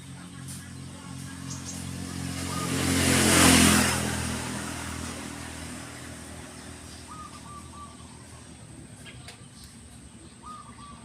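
A motor vehicle driving past, its engine and road noise swelling to a peak about three and a half seconds in and then fading away. Faint short chirps follow later.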